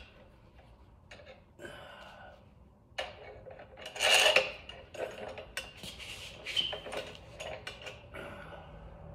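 Metal tools and parts clinking and scraping while a motorcycle front fork is assembled, a series of sharp clinks with a louder rattling cluster about four seconds in.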